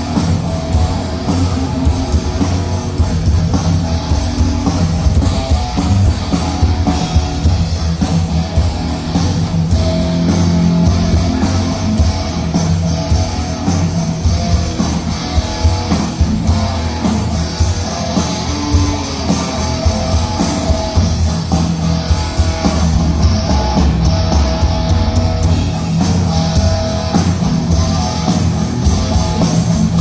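Heavy metal band playing live on stage: electric guitar, bass guitar and drum kit, in the band's opening warm-up piece.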